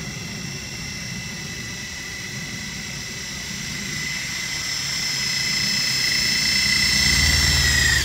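Homemade coaxial-rotor helicopter drone hovering: a steady high-pitched whine from its motors and rotors, growing louder as it comes close, with the pitch starting to drop near the end.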